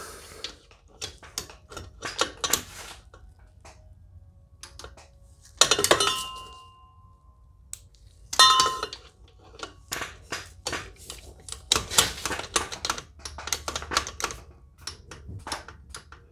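Hand tools working a bolt in metal: a socket wrench and torque wrench clicking and clanking, with two brief ringing metallic clinks about 6 and 8.5 seconds in and dense runs of quick clicks near the end.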